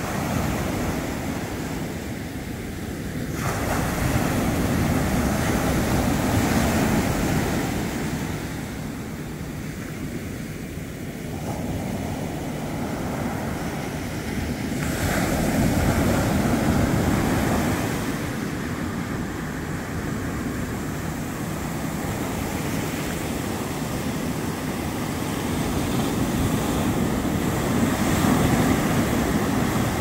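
Ocean surf breaking and washing up onto a sandy beach, a continuous rush of water that swells three times as waves come in.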